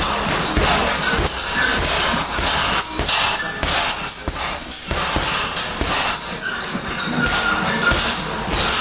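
Boxing gloves striking a double-end ball in quick, irregular combinations, the ball slapping back off its elastic cords between punches.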